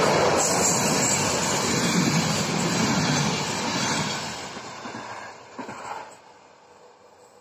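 Passenger train's coaches rolling past on the rails, a steady loud rumble that fades away as the train recedes, with a brief knock just before it drops off about six seconds in.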